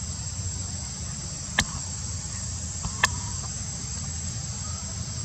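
Steady high-pitched drone of insects, with two sharp clicks about a second and a half apart near the middle.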